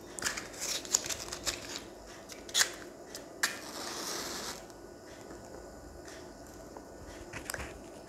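Matchbox handled, with a few light clicks, then a match struck against the box about three and a half seconds in, flaring with a brief hiss for about a second.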